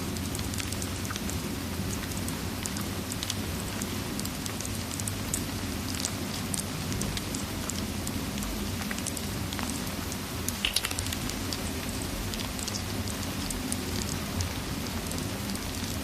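Steady rain mixed with a crackling fireplace: an even wash of rain over a low rumble, with scattered sharp pops and a few louder ones together a little after halfway.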